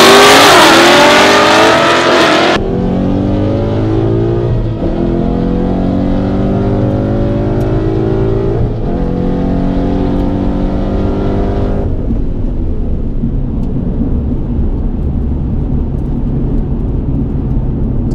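Drag-strip launch heard loud from trackside for the first couple of seconds. Then, from inside the cabin, a 2013 Mustang GT's 5.0 V8 pulls at full throttle down the quarter mile: the engine note climbs, drops back with manual upshifts about five and nine seconds in, and falls to a lower, steadier sound about twelve seconds in as the throttle is released after the run.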